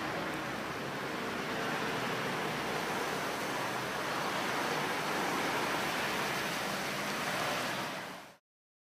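Steady rushing and splashing of floodwater over the street, with a car's tyres swishing through the shallow water as it drives slowly closer. The sound cuts off abruptly near the end.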